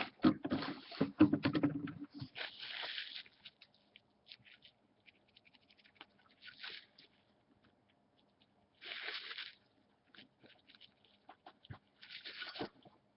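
Zippo lighter being handled: a flurry of clicks and knocks, then four short raspy hisses a few seconds apart.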